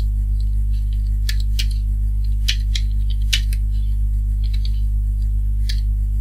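Computer keyboard keystrokes: scattered sharp key clicks at an irregular pace, about eight in all, over a loud steady low hum.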